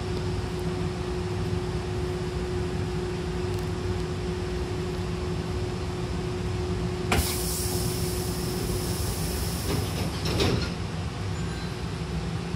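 Hankyu train's sliding passenger doors closing. About seven seconds in there is a sudden hiss of air from the door engines, and about three seconds later the doors shut with a clatter. Under it all is the steady hum of the stopped train.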